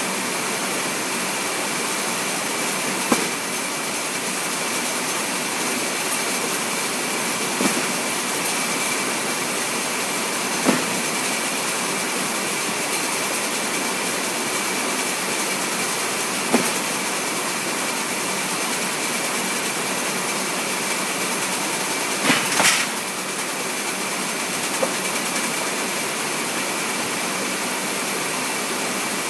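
Steady drone of warehouse machinery with a thin high whine running through it, broken by a handful of short knocks from cardboard boxes being handled. The loudest knocks come in a quick cluster about three-quarters of the way through.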